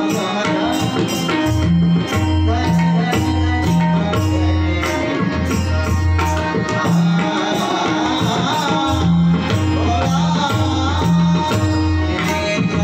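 Live devotional bhajan accompaniment: tabla playing a steady rhythm of deep resonant bass strokes and sharp high strokes over held sustained notes. About seven seconds in, a melody that bends up and down in pitch joins above it.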